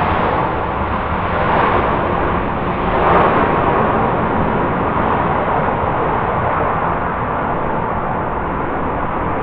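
Airbus A330-300 jet airliner landing, its engines making a steady, loud rush with slight swells about one and a half and three seconds in.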